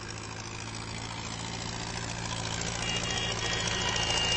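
Farm tractor engines running as a column of tractors drives past, a steady low engine hum that grows steadily louder as they approach.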